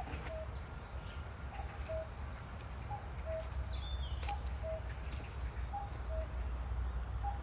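A bird repeating a two-note call, a higher note then a lower one, about every one and a half seconds, over a steady low rumble. A brief higher chirp comes about halfway through.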